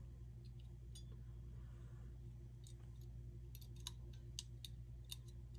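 Faint, scattered clicks and light taps of small metal and plastic parts being handled inside an open airsoft gearbox shell, more of them in the second half, over a steady low hum.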